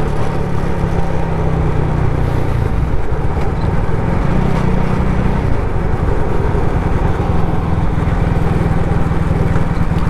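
Benelli Leoncino 250's single-cylinder engine running under way, heard from the rider's mic, with wind noise over it. The engine note shifts briefly about three seconds in and again near the middle.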